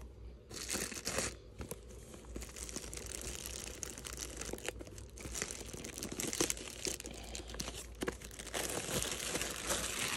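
Clear plastic bag crinkling and rustling as a cardboard box is worked out of it by hand: a dense run of crackles that starts about half a second in.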